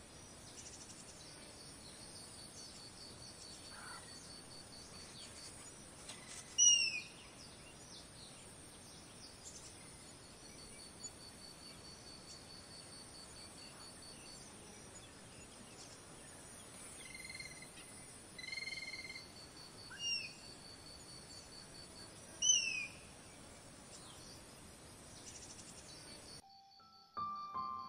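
Savanna wildlife ambience: a high, rapidly pulsing insect trill over a faint hiss, with birds calling now and then. The loudest calls are a few short, falling whistles, plus one two-note call.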